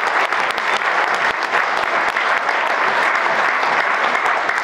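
Audience applauding: many hands clapping at a steady, even level.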